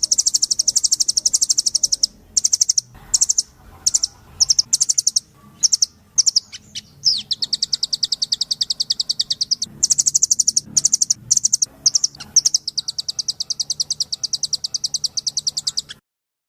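Rambatan doraemon (a nuthatch) singing: rapid high trills of sharp repeated notes, first in short bursts, then in longer runs, cutting off abruptly near the end.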